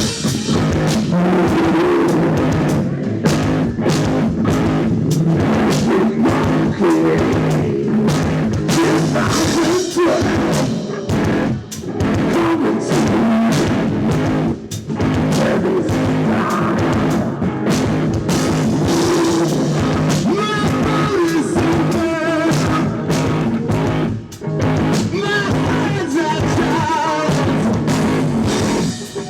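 Experimental rock band playing live, loud and continuous, with a few brief dips in level. A wavering high melodic line comes in about two-thirds of the way through.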